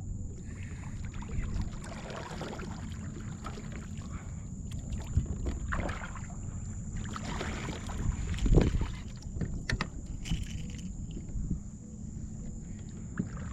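Kayak on the water: water splashing and lapping against the hull in a few short swishes, with scattered small knocks, over a steady low wind rumble on the microphone.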